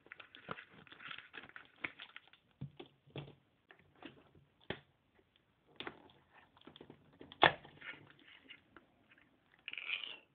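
Plastic wet-cat-food pouch rustling as it is cut open with scissors, then a ring-pull tin of cat food being opened: a loud sharp pop about seven and a half seconds in as the tab breaks the seal, and a scraping rustle near the end as the metal lid is peeled back.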